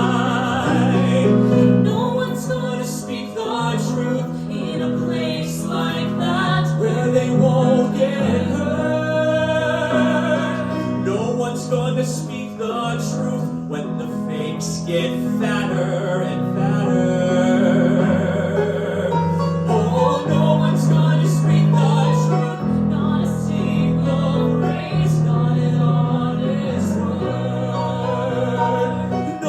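A musical theatre song sung live with vibrato over instrumental accompaniment, with held low chords under the voice.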